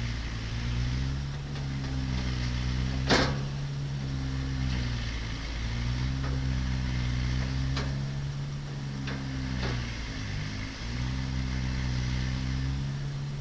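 A steady, low motor drone with a slowly wavering pitch, with a few sharp clicks or knocks of work on the truck over it, the loudest about three seconds in.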